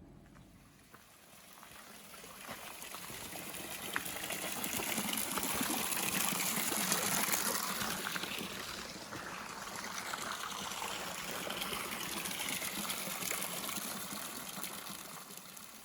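Running water of a stream, rushing steadily, growing louder over the first several seconds and easing off toward the end.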